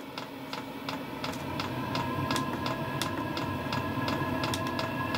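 Portable diesel air heater running on its first start-up: the fuel dosing pump ticks about three times a second over the steady hum of the blower fan, which grows louder about a second and a half in.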